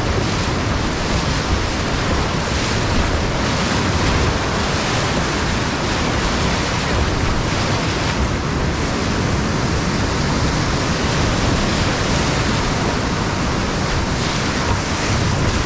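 Whitewater rapid on the Selway River rushing and churning around a raft, a loud steady rush of breaking waves.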